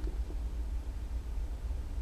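Steady low background hum with a faint click right at the start and another soon after.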